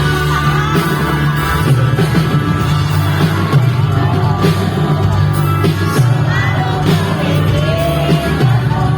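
Live pop-rock band music with singing: steady bass and band underneath a wavering sung melody.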